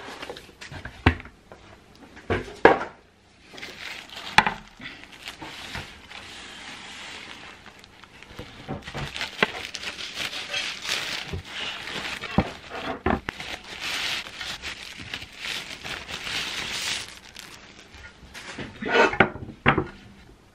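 Plastic packaging bag crinkling and rustling as a laptop stand is pulled out of it, broken by sharp clicks and knocks of handling. Near the end comes a cluster of louder knocks and clacks as the aluminium stand is set down and its arm is adjusted.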